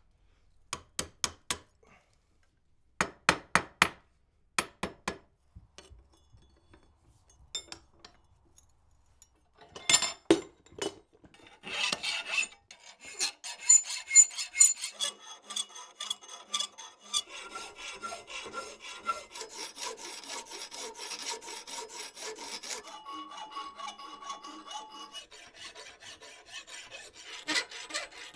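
A few short groups of sharp hammer blows on metal, then from about halfway a steady run of back-and-forth hand-file strokes rasping on the wrought-iron latch handle.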